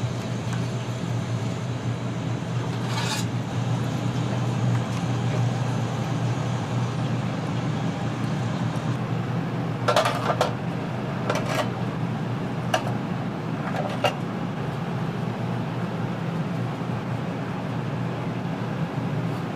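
Steady low hum of commercial kitchen equipment, with about half a dozen sharp metal clinks of utensils against pans and dishes around the middle.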